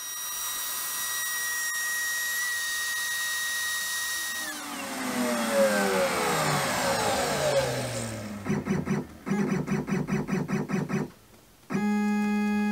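The Shapeoko Pro's trim router runs with a steady high whine, then is switched off and spins down, its pitch falling over about three seconds. After that the CNC's stepper motors buzz in a string of short jog pulses, then in one steady jog as the bit is raised.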